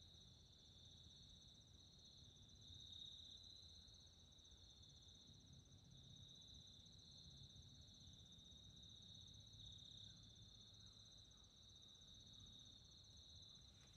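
Near silence with the faint, steady high trill of crickets.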